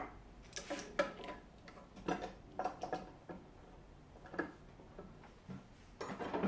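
Hand tools and wooden parts being handled on a wooden workbench: about ten irregular knocks and clicks as things are picked up and set down, some with a brief ring, bunched together near the end.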